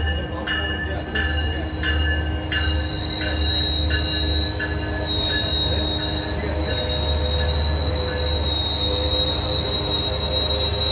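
Metrolink bi-level passenger train rolling past, its wheels giving a steady high-pitched metallic squeal. A rhythmic clack from the wheels repeats about every two-thirds of a second and fades out about halfway through.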